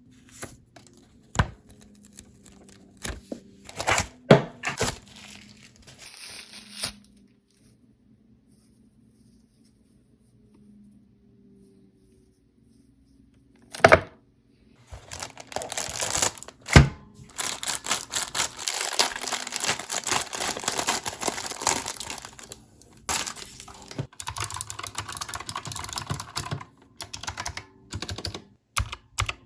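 Keyboard packaging being handled and opened: scattered taps and clicks, a few seconds of near silence, a sharp knock, then a long stretch of packaging crinkling and tearing with a few knocks, and separate clicks near the end.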